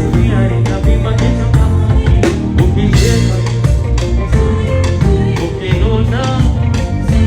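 Live band playing an instrumental passage between vocal lines, with a steady drum beat and heavy bass.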